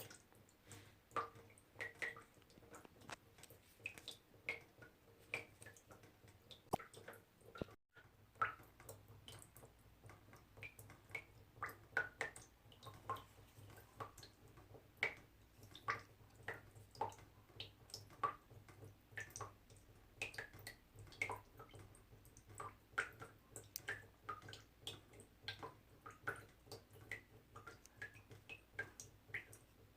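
Small water droplets dripping one after another in an irregular patter, about two to three a second, each a short, faint plink. The sound cuts out for a moment about eight seconds in.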